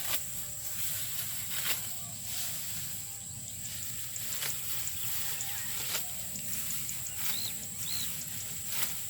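A hand sickle cutting through ripe rice stalks, a crisp snap or swish every one to three seconds, about five strokes in all. A steady high thin whine and an outdoor rumble run under it, with two short chirps near the end.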